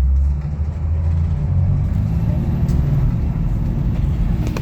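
School bus running, a steady low rumble heard from inside the passenger cabin.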